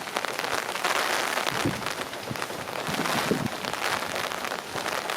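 Heavy hurricane rain drumming steadily on an umbrella held overhead. Gusty wind buffets the microphone with irregular low thuds.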